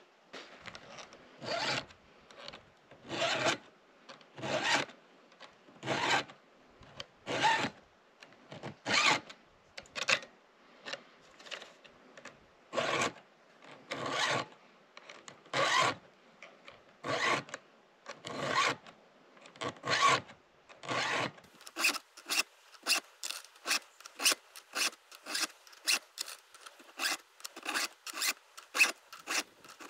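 Round chainsaw file rasping across the cutting teeth of a chain, one long stroke about every second and a half. About two-thirds of the way through the strokes turn quicker and shorter, around two a second, with a sharper sound.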